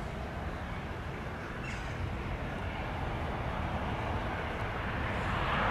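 Boeing 737-700's CFM56-7B turbofan engines on final approach, a steady rumble that grows louder as the jet comes closer, with a rising hiss near the end.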